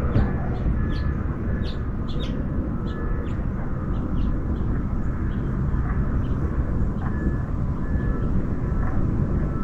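Outdoor background noise: a steady low rumble, like vehicle traffic, with scattered short high chirps and a few brief beeps.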